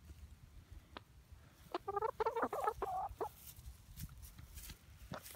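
Domestic hen clucking: a run of short, pitched calls about two seconds in, lasting a second and a half. A few sharp clicks fall before and after the calls.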